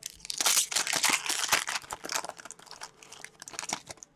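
Plastic wrapper of a hockey card pack being torn open and crinkled. Dense crackling for the first two seconds or so, then lighter, scattered crinkles.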